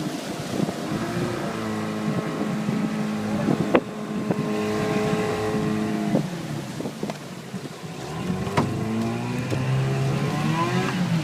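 Mariner 15 hp outboard motor running under way, its pitch dropping off a little past the middle and climbing again near the end, with wind on the microphone. Two sharp bangs cut through, about five seconds apart, the first the loudest sound.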